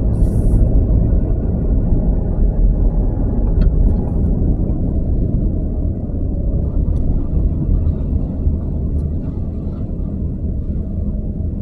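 Steady low rumble of a vehicle driving slowly along the road, engine and road noise, easing slightly after about four seconds.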